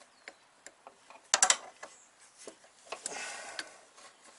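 Metal clicks and rattles from a steel brake hard line being handled and worked into place against the suspension, with a sharp cluster of clicks about a second and a half in and a short scraping rub about three seconds in.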